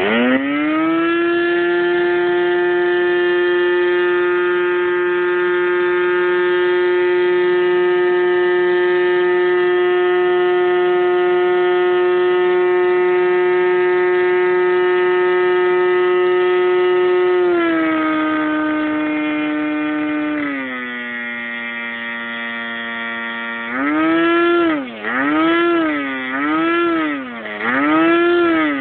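OS 75 two-stroke glow model-airplane engine with its propeller, running on a test stand during break-in. It spools up to full throttle and holds a steady high-pitched drone for about seventeen seconds. It is then throttled back in two steps to a lower speed, and near the end it is blipped up and back down four times.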